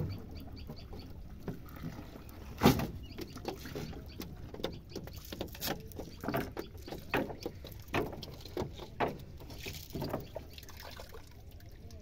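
A wet cast net being hauled into a wooden boat and laid down on the deck: irregular knocks and rattles of the net and its weights against the planks, with water dripping and splashing. The loudest is a sharp knock about two and a half seconds in.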